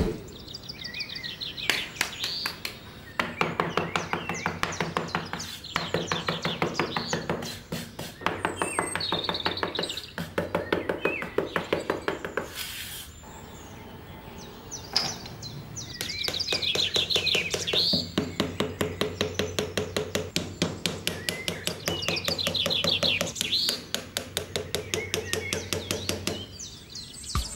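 A small hammer tapping wooden dowels down into sand, in long runs of quick taps several a second with short pauses between, while birds chirp.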